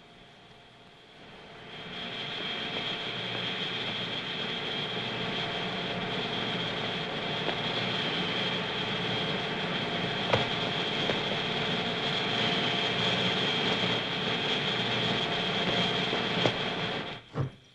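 Steady mechanical drone with a high whine, like a large machine running. It fades in about a second and a half in, has a couple of sharp clicks in the middle, and cuts off with a knock near the end.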